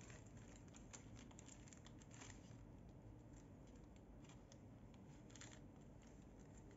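Faint crinkling and crackling of a thin clear plastic bag being handled and worked off a small plastic action figure, in scattered small ticks.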